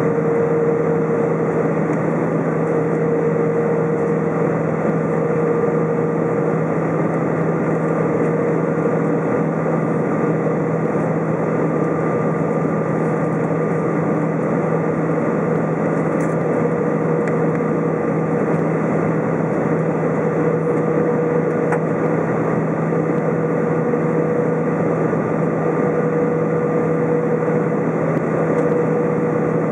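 Airbus A320 cabin noise during the approach to land: the engines and airflow make a steady drone, with a mid-pitched tone in it that fades and returns.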